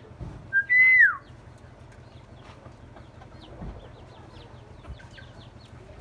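Myna giving one loud whistle about a second in: a short note, then a longer held note that slides down at the end. Faint short high chirps follow.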